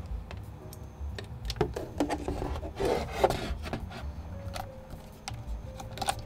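Handling noise from a Blackmagic Pocket Cinema Camera 4K and its AC adapter cord being picked up and moved on a wooden floor: rubbing and scraping, with many small clicks, as the power plug is fitted into the camera. The scraping is densest about two to three seconds in.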